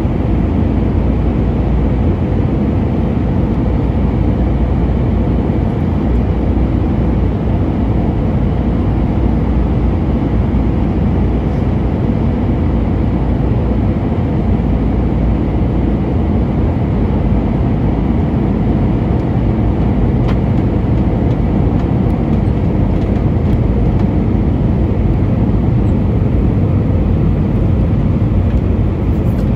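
Steady roar of an Airbus A320's IAE V2500 turbofan engines and rushing air, heard from inside the cabin beside the wing during the descent.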